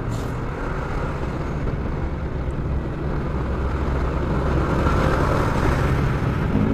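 Motor scooter riding in city traffic: a steady low engine hum with road and wind noise on the mounted camera's microphone, growing louder in the second half as it picks up speed. A single short click right at the start.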